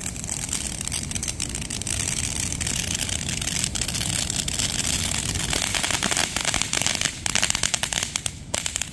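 Consumer firework crackling: a steady hiss full of rapid small pops, the pops thickening over the last few seconds.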